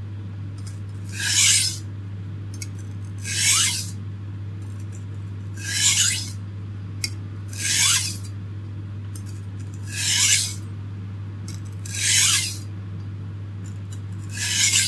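Steel kitchen knife blade drawn across an oiled India oilstone: a rasping stroke about every two seconds, seven in all. The strokes alternate sides of the blade, working back and forth at normal pressure to remove the burr raised during sharpening.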